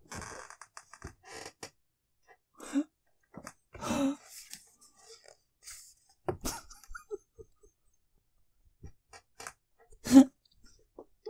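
Stifled, breathless laughter: irregular wheezing gasps and short strained bursts in fits, the loudest about ten seconds in.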